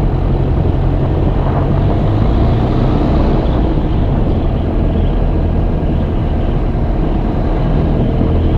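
Zenith CH 650's 118-hp UL Power UL350i flat-four aero engine running steadily at high power for the takeoff, with a constant low drone.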